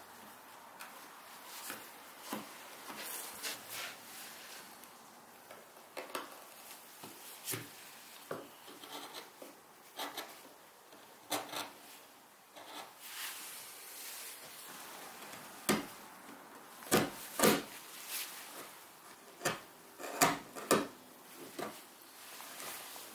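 Hand tools scraping, scribing and paring the edge of a Baltic birch plywood panel, in short irregular strokes. The sharpest, loudest strokes come in the last third, as a chisel is pushed along the edge.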